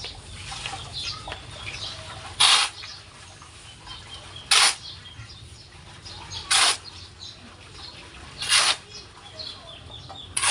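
Shovel scooping and tossing sand, a short scraping hiss about every two seconds, four times with a fifth near the end.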